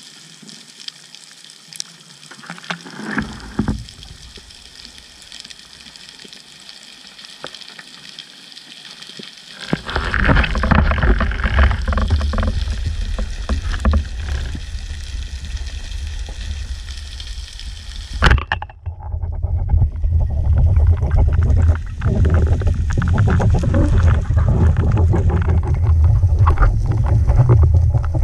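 Underwater sound picked up by a cased action camera: a faint crackling hiss at first, then from about ten seconds in a loud rumbling rush of water with knocks, broken by a sharp crack a little past halfway.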